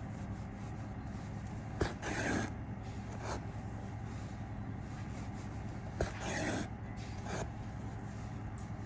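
Hand edge repair of a gabbeh wool rug: twice, a sharp tick is followed by a half-second rasping scrape of wool yarn being drawn through the rug's edge, then a shorter scrape. A steady low hum runs underneath.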